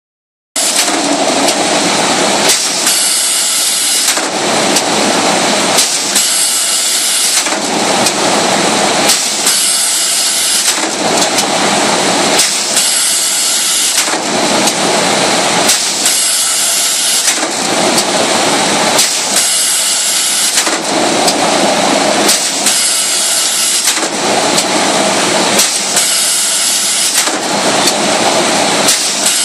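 Automatic woven-sack bag-making machine running, its rollers and belts feeding the fabric under a steady loud clatter. A hissing burst comes back about every three seconds, once per machine cycle.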